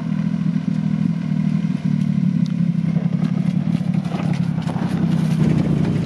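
Kei mini truck engines (Honda Acty and Suzuki Carry) running at low speed, a steady low engine note with scattered clicks and clatter.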